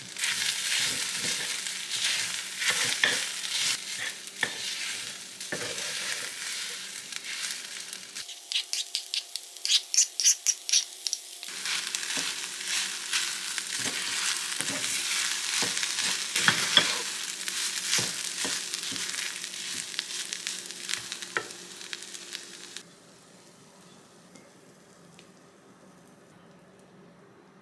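Squid and kelp fried rice sizzling in a nonstick pan while it is stirred and scraped with a wooden spatula. About eight seconds in there is a short stretch of quick, evenly spaced tapping, about four a second, before the sizzling and stirring resume. The sizzling stops about 23 s in, leaving only a faint low background.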